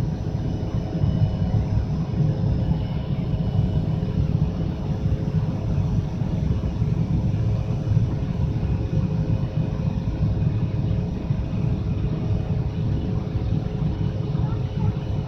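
Airliner cabin noise from jet engines and rushing air after takeoff: a steady, dense low rumble with faint steady hums above it.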